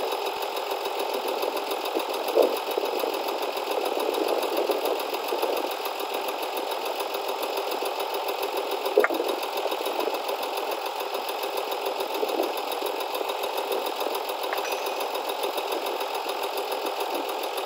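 Hesston 1880DT tractor engine idling steadily, with two short sharp knocks, one about two seconds in and one about nine seconds in.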